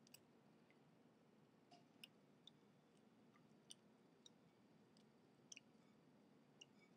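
Faint, irregular crisp clicks, about a dozen, as pomegranate seeds are picked free from the fruit by hand, over low background hiss.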